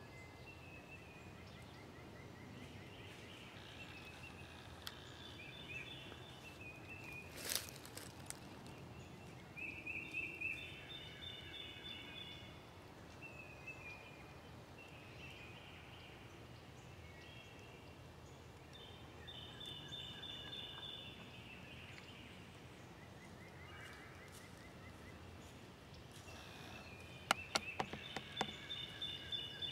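Several woodland songbirds singing on and off, with short repeated phrases and a few trills. A sharp crack about seven seconds in, and a quick run of sharp clicks near the end.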